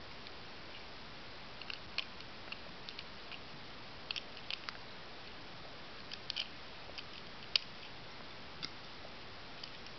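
Plastic Lego bricks clicking as they are pressed onto a model and handled: a scattering of light, sharp clicks at uneven intervals over a faint steady hiss.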